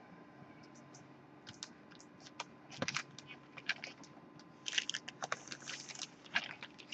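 Laserdisc jackets being handled on a table: a scattered run of light taps, clicks and rustles that starts about a second and a half in and grows busier near the middle.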